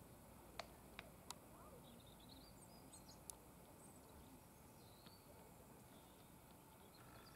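Near silence: faint outdoor ambience with birds chirping. A few sharp clicks come through, three close together in the first second and a half and one more about three seconds in.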